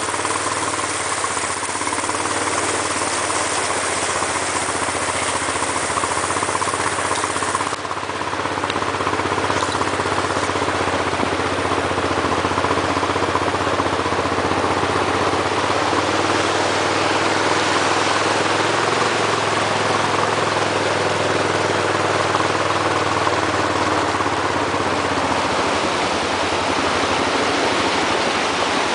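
Toyota Tundra pickup's engine running low and steady as it wades through floodwater, under a constant rush and splash of water around its tyres and trailer wheels.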